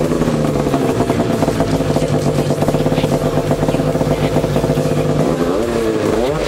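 Ski-Doo snowmobile engine running at idle through an MBRP aftermarket exhaust can, with a fast, choppy pulse. Near the end the throttle is blipped and the engine pitch rises and falls.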